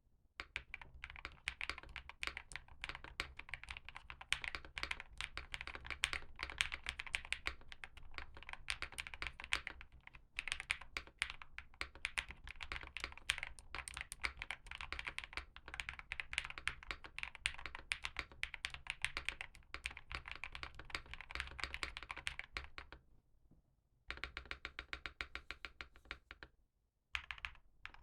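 Fast typing on a stock, unmodded Sugar65 mechanical keyboard with Lumia Matcha V2 switches and GMK Tiramisu clone keycaps: a dense, continuous run of keystroke clacks. The typing stops for about a second near the end, then stops again briefly.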